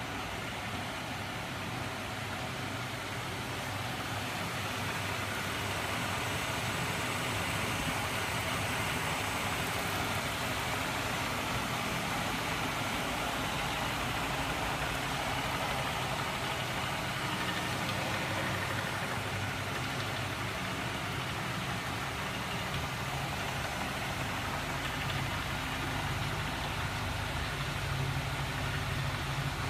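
Homemade magnet-engine rig running steadily: a small 12 V DC electric motor spins its crankshafts and magnet rotors, giving a continuous mechanical running noise with a low hum.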